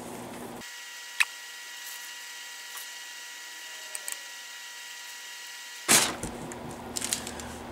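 Mostly a faint steady electrical hum with one sharp click about a second in. About six seconds in, tracing paper rustles loudly as it is handled, followed by a few light taps.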